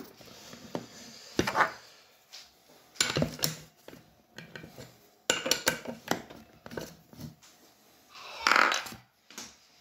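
Handling noise: a few short knocks and clatters as the metal drill chuck holding a screw-mounted reel spool is tightened and the drill is moved, with a longer rubbing sound near the end.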